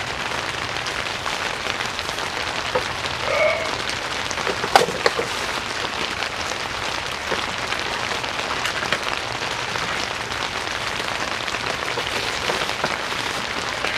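Steady rain on a tent's fabric roof, an even patter of many small drop hits, with one sharp knock about five seconds in.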